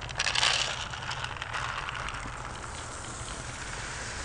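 Feed rattling as it is shaken in a plastic bucket to call a cow to feed: a dense, crackly rattle loudest in the first second, then going on more softly.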